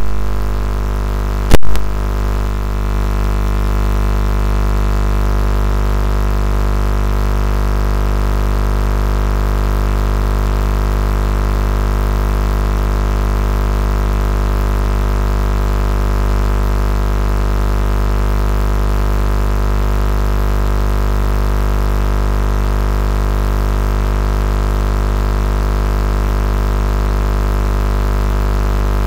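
An engine idling at a steady, unchanging pitch, with one sharp knock about a second and a half in.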